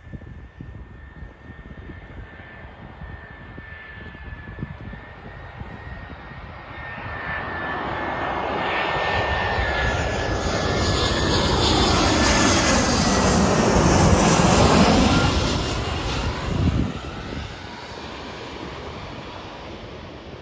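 A jet airliner's engines passing by: a steady high whine at first, then the engine noise swells over several seconds, is loudest a little past the middle, and dies away.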